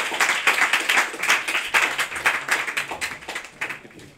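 Audience applauding, many people clapping at once, dying away toward the end.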